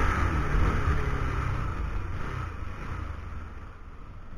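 Bajaj Pulsar NS200 single-cylinder engine running, with wind rushing over the microphone, both dying away as the motorcycle slows down.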